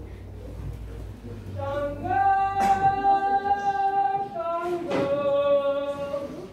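A woman singing unaccompanied, starting about one and a half seconds in, in slow, long-held notes that step from one pitch to the next. There is a low hum before the singing, and two short knocks come during it.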